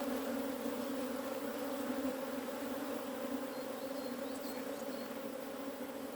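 Honeybees buzzing in a steady hum around an open hive during an inspection.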